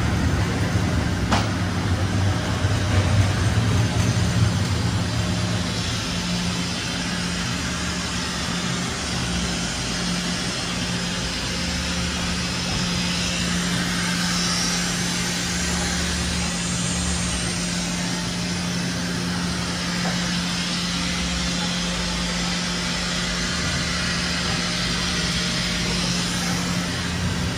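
Steady machine hum: a constant low tone over an even hiss, with a heavier low rumble for the first few seconds.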